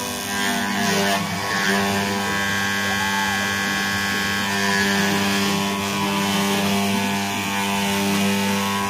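A small desktop CNC milling machine running: a steady mechanical hum with several held tones that come and go and shift in pitch as its stepper motors drive the axes.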